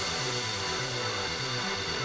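Background music with a repeating bass line.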